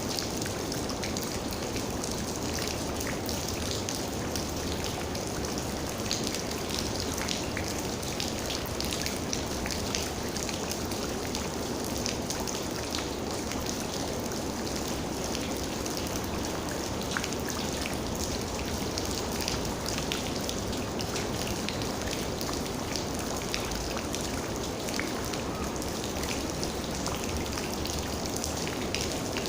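Steady rain falling, with many separate raindrops tapping on a surface.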